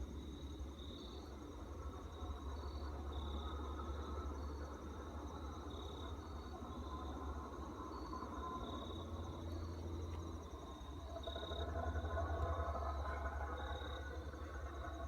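A high, insect-like chirp repeating in pairs of two pitches about every second and a half, over a steady low hum. A fainter low rumble swells up about three-quarters of the way through.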